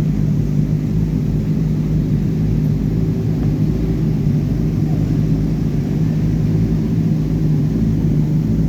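An engine running steadily with an even, unbroken low drone.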